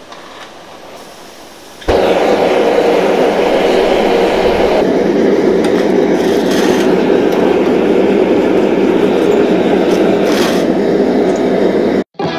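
Blower-fed gas forge being lit with a hand torch: a soft hiss, then the burner catches with a sudden whoomp about two seconds in and runs with a loud, steady rushing noise until it cuts off near the end.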